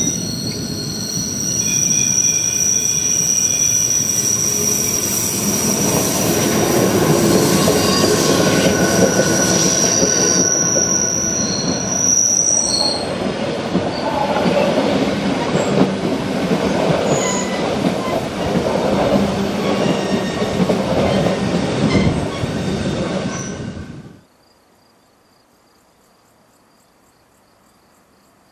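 Rhaetian Railway electric train with panoramic carriages passing close by on a tight curve, wheels squealing in several steady high tones over the rumble and clatter of the running gear. The squeal dies away about halfway through while the rumble goes on, and the whole sound cuts off suddenly near the end, leaving only a faint steady high tone.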